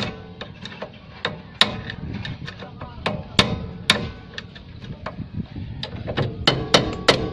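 Hammer blows on the steel steering knuckle at a Suzuki Multicab's tie rod end, knocking upward to jar the ball stud's taper loose. Sharp metallic strikes with a short ring, uneven at first, then a quicker even run of about four a second near the end.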